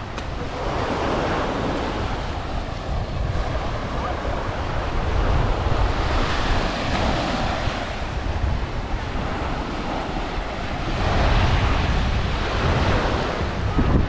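Surf washing up on a sandy beach, swelling and ebbing every few seconds, with wind buffeting the microphone in a low rumble.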